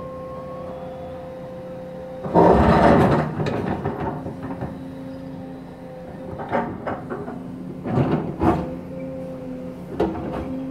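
Tracked excavator demolishing a brick building: its engine runs steadily while masonry comes down with a loud crash about two seconds in, followed by further knocks and clattering of rubble a few seconds later.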